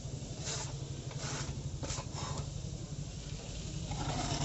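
Putty blade scraping texture putty across a wall in several short strokes.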